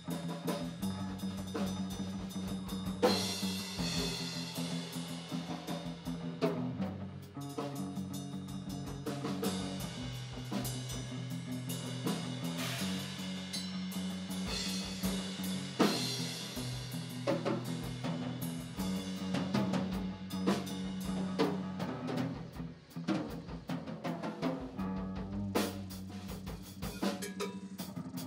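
Electric guitar and a drum kit playing together: held guitar notes and chords under frequent snare and bass drum hits.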